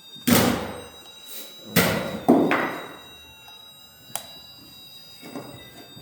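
Three loud thunks, each dying away briefly: one just after the start and two close together near the two-second mark. A single sharp click follows about four seconds in, over a faint steady high whine.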